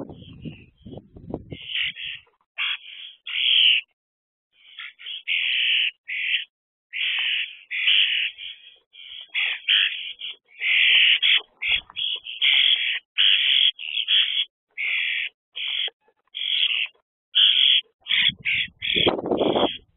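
Juvenile common starlings giving harsh begging calls, short call after short call, as adults feed them. A few low thuds come near the start and again near the end.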